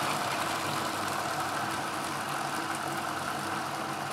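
Food processor motor running steadily, its blade chopping dates and sunflower seeds into a still-chunky mix.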